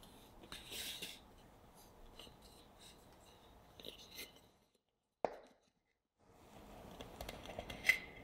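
Hands working a chocolate chiffon cake out of an aluminium tube pan: soft rubbing and pressing at the sponge with small light knocks of the metal pan. Near the end a sharp metallic clink as the pan's tube base meets the wooden board.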